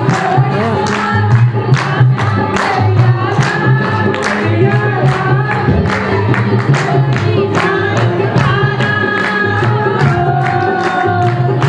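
A woman singing into a microphone through a PA, another woman singing along, over music with a steady beat.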